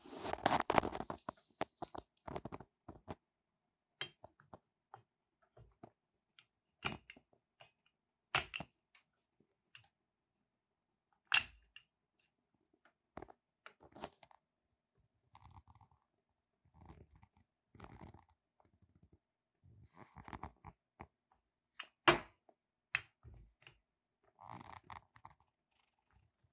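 Irregular handling noises: scattered sharp clicks and knocks with short scraping, rustling bursts between, and silence in the gaps.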